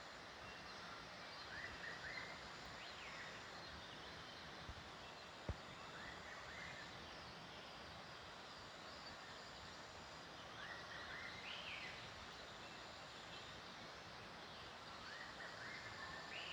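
Faint outdoor ambience: a steady hiss of background noise with a few short bird calls every few seconds, and one sharp click about five and a half seconds in.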